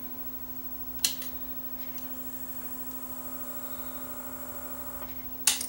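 Small DC motor of the CD changer's belt-drive assembly running with a steady whine for about three seconds, turning the belt. A sharp click comes about a second in and another near the end.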